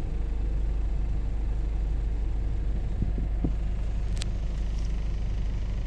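2009 Ford Everest engine idling with the air-conditioning compressor switched on, giving a steady low rumble and the extra noise that appears only when the compressor is engaged.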